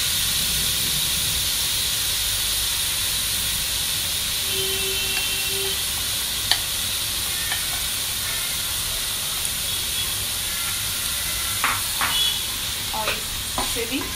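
Chopped vegetables sizzling in a metal pot, a steady frying hiss. From about twelve seconds in, a metal slotted spoon scrapes and clinks against the pot as maida flour is stirred in to roast.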